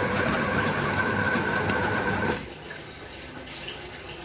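Electric yam pounder (food processor) motor running with a steady whine as it pounds boiled yam, cutting out about two-thirds of the way through.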